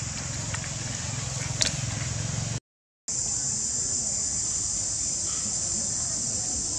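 Outdoor ambience dominated, after a sudden brief drop-out about two and a half seconds in, by a steady high-pitched drone of insects. Before the drop-out there is a low hum with one sharp click.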